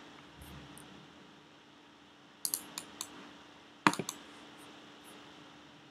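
Sharp clicks of computer input: a quick run of three or four clicks about two and a half seconds in, then a louder pair about a second later, over a faint steady hum.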